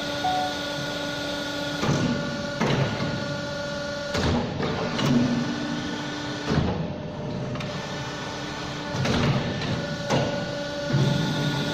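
A CNC pipe bending machine running with a steady hum, broken by a string of clunks and short whirring movements at uneven intervals.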